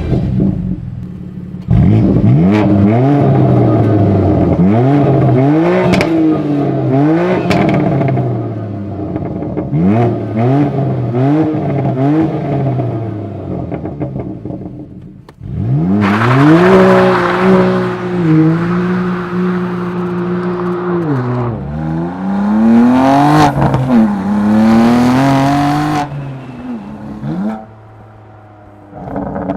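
BMW M2 Competition's S55 twin-turbo inline-six with an aftermarket exhaust, revved in a string of quick blips. Later it is held at higher revs for a couple of seconds, drops back and is blipped again.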